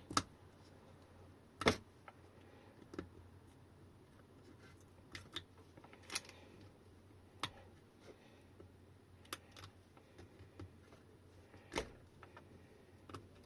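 Scattered small clicks and taps of hands and tools handling an opened battery pack, about a dozen sharp ticks at irregular intervals over a low room hum.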